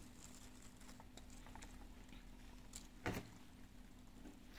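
Near silence: faint room tone with a few small clicks, one a little louder about three seconds in.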